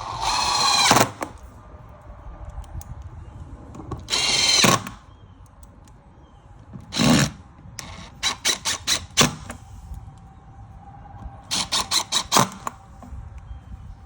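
Cordless drill/driver driving screws into a casement window crank operator's mounting: two runs of about a second each, then several quick trigger pulses in a row, twice, as the screws are seated.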